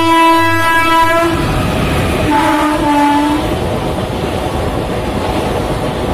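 Horn of an Indian Railways WAP-4 electric locomotive on an express passing at over 110 km/h. A held blast stops a little over a second in, and a shorter blast about two seconds in drops slightly in pitch partway through. The steady rushing rumble of the coaches passing at speed follows.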